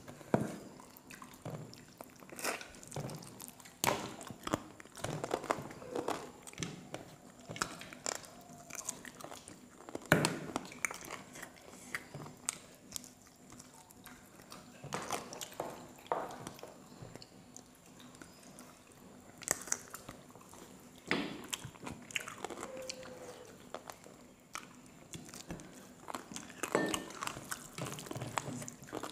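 Close-miked eating sounds: chewing and wet mouth smacks and clicks from mouthfuls of rice and chicken curry eaten by hand, coming irregularly throughout, with fingers squishing and mixing rice on the plate.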